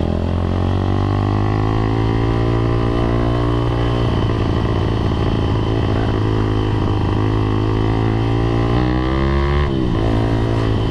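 Motorcycle engine running under way in traffic. Its pitch climbs over the first few seconds, holds steady, rises again, then drops sharply near the end.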